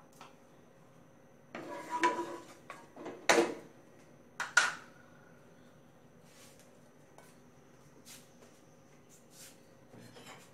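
Kitchenware clattering off-camera three times, about two, three and four and a half seconds in, then near-quiet with a few faint ticks.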